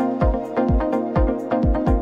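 Electronic dance music: a deep kick drum on every beat, about two a second, under sustained synth chords and crisp hi-hat ticks.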